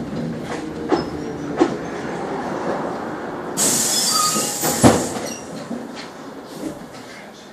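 Trolleybus interior, rumbling and rattling as it slows to a stop, with a few sharp knocks and a burst of hissing compressed air about three and a half seconds in.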